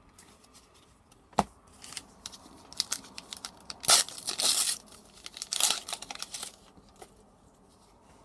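The foil wrapper of a Flesh and Blood Uprising trading-card booster pack being torn open and crinkled by hand, in several bursts of tearing and rustling, loudest about four seconds in. A single sharp tap comes just before, about a second and a half in.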